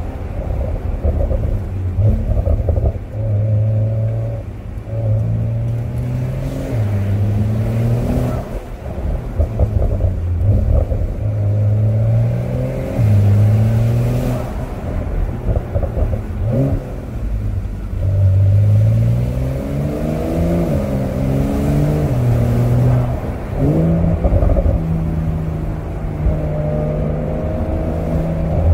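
Porsche 911 (992) Cabriolet's twin-turbocharged flat-six engine on the move, its note stepping up and down in pitch with throttle and gear changes and rising in revs several times, heard from the cabin with the top down.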